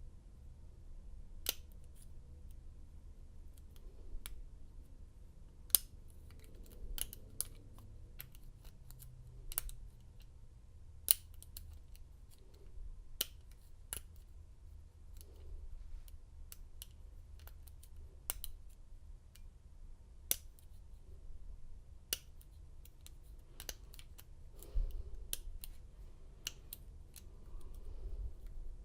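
Lock pick and tension wrench working the pin tumblers of an American 1100 padlock: irregular small sharp clicks, a few much louder than the rest, as pins are lifted and set. The picker thinks he is clicking through the pins' serrations.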